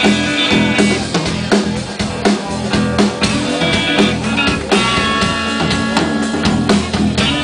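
Live blues-rock band playing an instrumental passage without vocals: electric guitars holding sustained notes over a steady drum-kit beat.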